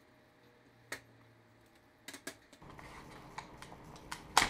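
Scattered sharp clicks and light knocks from handling an old fluorescent cabin light fixture: the plastic lens cover lifted off and a fluorescent tube being worked out of its sockets, with the loudest click near the end.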